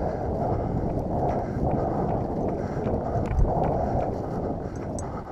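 Rustling of boots and legs pushing quickly through tall dry grass, mixed with wind buffeting the microphone, with a faint, fairly regular tick of footsteps.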